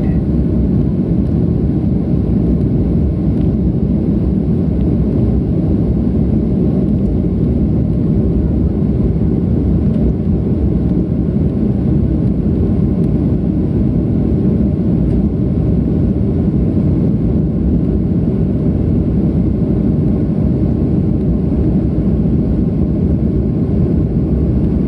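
Cabin noise of a jet airliner in flight, heard from a window seat: a steady low rumble of engines and airflow that holds unchanged throughout.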